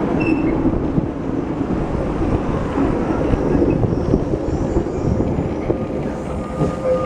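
Santa Teresa electric tram running on its rails: a steady rumble with scattered wheel knocks and clacks. About six and a half seconds in, a steady high-pitched squeal sets in.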